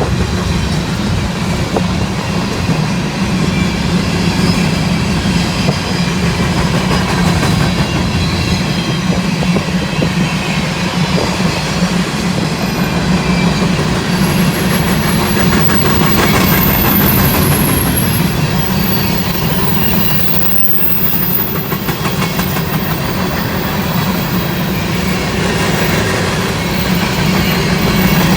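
Empty coal hopper cars of a freight train rolling past steadily, wheels clicking and rumbling on the rails. Thin high-pitched wheel squeal comes and goes around the middle.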